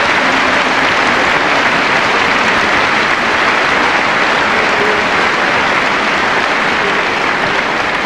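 A large audience applauding steadily.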